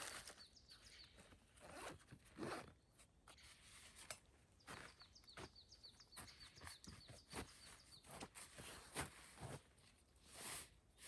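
Quiet rustling and scattered light knocks of someone handling gear outdoors, with a small bird chirping in quick runs of short high notes in the background.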